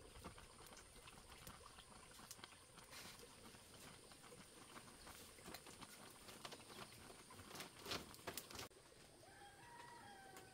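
Faint clicks and taps of a utensil against a bowl, with a few sharper knocks about eight seconds in. Near the end a rooster crows once, faintly, in one long drawn-out call.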